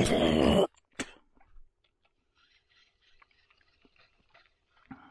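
A man coughs hard once, hacking to clear a mosquito he has swallowed, followed by a short click and faint rustling.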